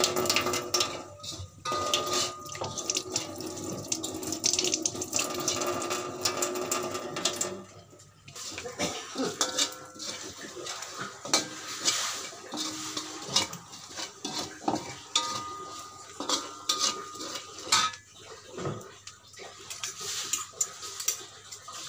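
A tap running into a stainless steel sink for the first several seconds. Then a metal spatula scrapes and clanks against an aluminium wok as a thick paste is stirred. Near the end a spoon clinks in a bowl of rice.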